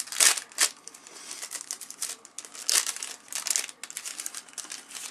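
Cellophane wrapper of a trading-card pack crinkling and tearing as it is opened and the stack of cards is pulled out: a series of sharp crackles, loudest just after the start and again around three seconds in.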